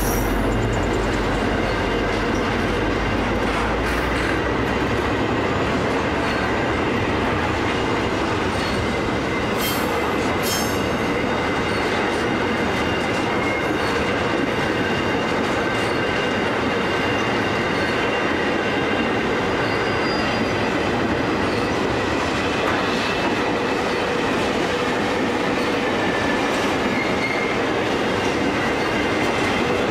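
Container wagons of a freight train rolling past: a steady rumble of steel wheels on rail with thin squealing tones and a few sharp clicks. The low drone of the diesel locomotives that have just gone by fades out about five seconds in.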